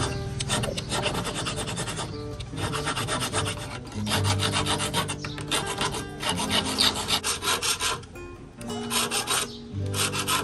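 Hand file rasping over a small piece of coin metal in a wooden bench pin, in quick back-and-forth strokes, with a brief pause about eight seconds in.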